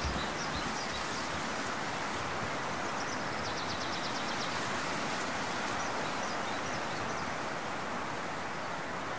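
Outdoor ambience: a steady, even rushing hiss with faint high bird chirps, including a quick trill about three seconds in.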